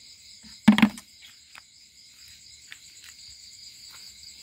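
A chorus of crickets chirping steadily in a high pitch, with one brief knock about a second in and a few faint clicks.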